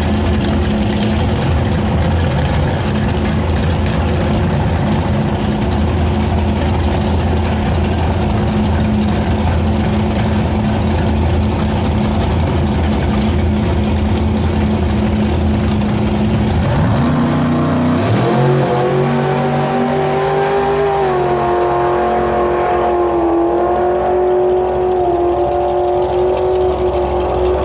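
Outlaw Anglia drag car's engine idling loudly and roughly at the start line. About 17 seconds in it revs up and the car launches, and the engine runs high-pitched down the strip with a few dips in pitch as it goes.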